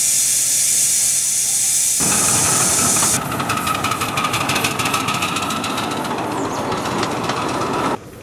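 Miniature 7.25-inch-gauge steam locomotive, a Great Western '1101' class 0-4-0 pannier tank, hissing steam steadily at first. About two seconds in the sound turns to a rougher mix of steam and running noise with a quick run of faint beats as the engine works. It turns much quieter near the end.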